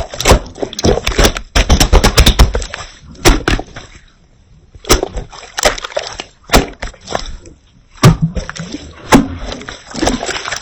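Slime being squished and pressed by hand, giving irregular wet clicks, pops and squelches. There is a quieter pause about four seconds in.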